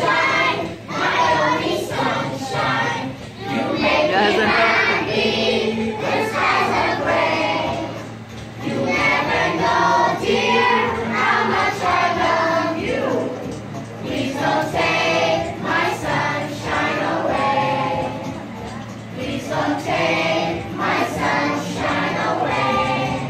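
A group of young children singing a song together, with music.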